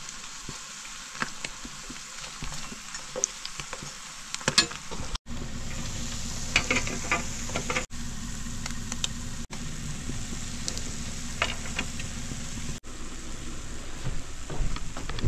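Small marinated fish frying in hot oil in a pan, sizzling steadily until crispy. Scattered sharp clicks sound over the sizzle, and the frying grows fuller about four and a half seconds in.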